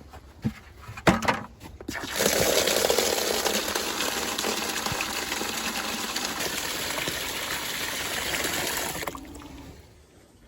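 Water gushing out in a steady stream to fill the pigs' water, starting about two seconds in and stopping shortly before the end, after a few knocks at the start.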